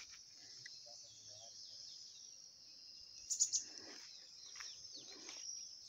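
Steady high-pitched buzz of insects, with a short burst of bird chirping about three seconds in.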